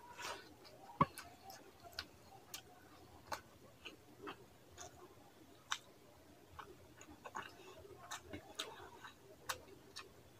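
Close-miked wet mouth sounds of a person eating rice and fish curry by hand: irregular lip smacks and chewing clicks, one louder about a second in.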